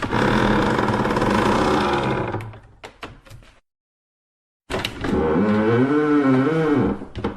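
Wooden floorboards creaking. A long creak trails off into a few small ticks, then after a short gap of silence a second creak comes whose pitch wavers up and down.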